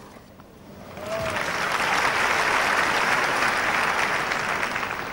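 Tennis crowd applauding at the end of a point. The clapping builds about a second in and then holds steady.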